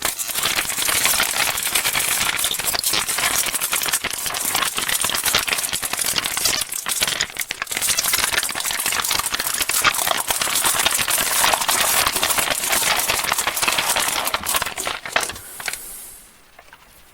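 Plastic candy wrappers being crinkled and torn open by hand: a dense, crisp crackle that runs on, then dies away near the end.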